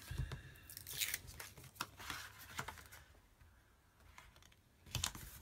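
Patterned paper being handled and pressed onto card: faint rustling and several light taps and crisp paper sounds, with a brief high squeak near the start.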